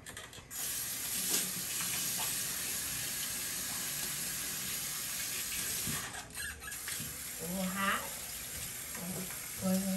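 Bathroom sink tap running, water splashing into the basin as hands are washed under it. The water comes on about half a second in and runs steadily.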